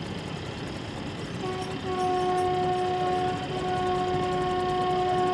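A train horn sounding one long, steady note that starts about a second and a half in, over the rumble of passenger coaches running past.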